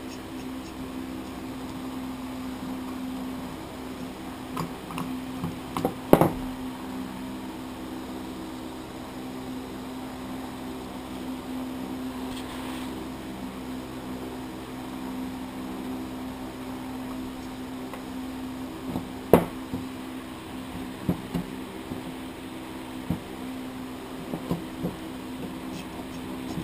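Sharp metal clicks and knocks from hand tools and a Trigg A200 brake caliper being taken apart, the loudest about six seconds in and again near nineteen seconds, with a cluster of lighter clicks near the end. A steady low hum runs underneath.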